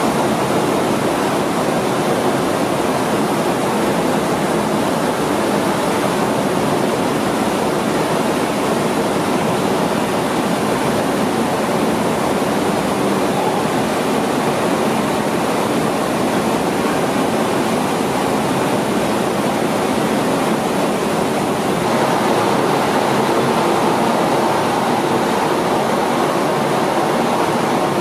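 Rice mill machinery running, with a steady, even rushing noise as rice grain pours in a stream from the milling machine's outlet onto a heap. The sound changes a little about three quarters of the way through.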